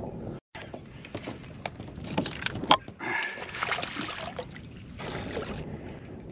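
A big bream splashing at the surface beside a kayak as it is played in and scooped into a landing net, with scattered sharp clicks and knocks, the loudest about two and a half seconds in. The sound cuts out for an instant near the start.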